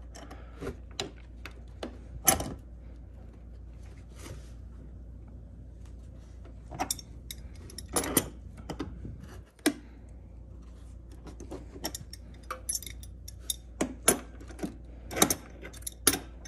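Irregular sharp metallic clicks and clinks of a wrench working a brass hose-barb fitting as it is tightened snug onto the generator's fuel-line bushing, more frequent in the second half.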